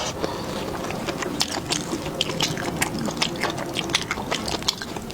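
Eating sounds: wet chewing with a quick run of small mouth clicks and smacks.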